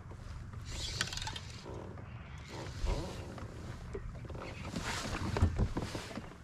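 Wind buffeting the microphone as a low, uneven rumble, with water washing against a fishing kayak and a couple of light knocks.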